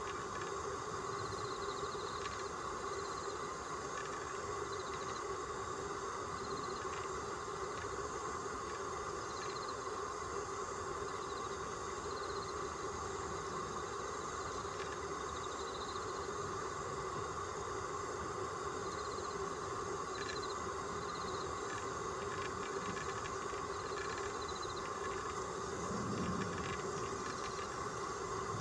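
Steady outdoor background hum with faint, short high chirps repeating irregularly, as of insects in the grass; the owl itself makes no clear sound.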